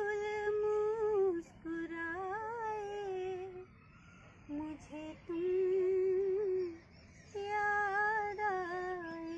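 A woman singing a nazm melody unaccompanied, in long held, wavering notes. There are about five phrases with short breaths between them, and the words are barely formed, close to humming.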